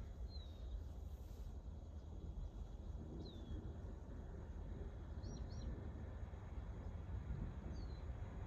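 Low, steady rumble of outdoor wind noise, with a few short downward-sliding bird chirps: three single chirps a few seconds apart and a quick pair near the middle.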